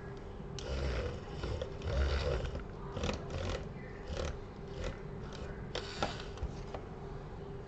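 Irregular rubbing and scraping strokes as leftover adhesive is worked off a Samsung Galaxy A15 phone frame, with a sharp click about six seconds in.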